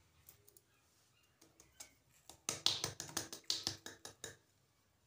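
A drinking glass of flour tapped and shaken to knock the flour out into a glass mixing bowl: a quick run of about a dozen sharp glassy taps over some two seconds, starting about halfway in.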